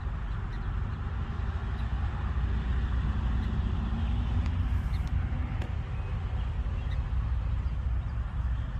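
Steady low rumble of road traffic and engines, with one vehicle's engine note rising and falling through the middle as it passes.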